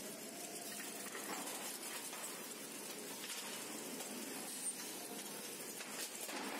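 Steady hissing factory-floor noise as an industrial palletizing robot arm swings and grips a stack of metal ingots, with a faint motor whine early on and a few faint clicks and clanks.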